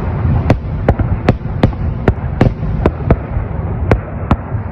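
A barrage of sharp explosive cracks, about two or three a second at uneven intervals, over a continuous low rumble and crackle.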